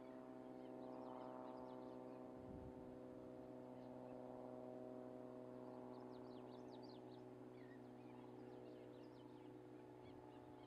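Quiet marsh ambience: a steady low hum runs throughout, with faint, high, short bird chirps in small clusters near the start, past the middle and near the end. A soft low thump comes about two and a half seconds in.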